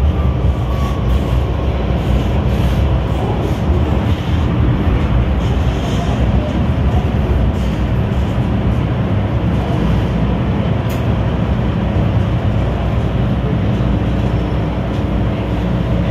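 Steady rumble of an MTR M-Train electric multiple unit running, heard from inside the carriage: wheels on rail and running gear, easing a little near the end as the train comes into a station.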